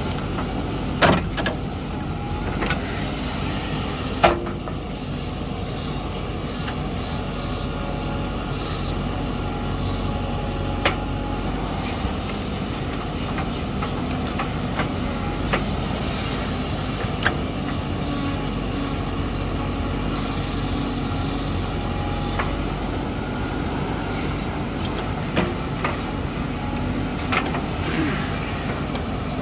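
Backhoe loader's diesel engine running steadily, with several sharp knocks scattered through it; the loudest comes about four seconds in.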